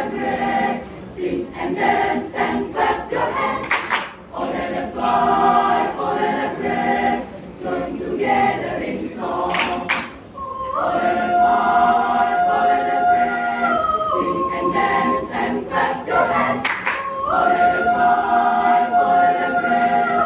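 Children's choir singing in parts, with long held notes about halfway through and again near the end.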